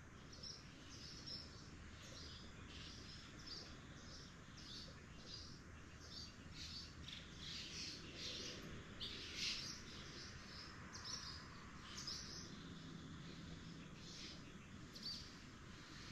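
Faint birds chirping repeatedly, short irregular calls one after another, over a quiet outdoor background hum.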